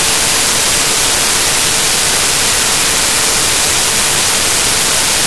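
Loud, steady static hiss with a faint steady hum under it. It is signal noise from a corrupted stretch of the recording, not a sound in the room.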